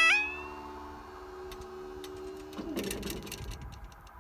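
Level-crossing barrier raising: the yodel alarm cuts off, and a steady hum from the barrier mechanism runs for about two and a half seconds. It stops with a short clatter of clicks and knocks as the boom reaches its raised position.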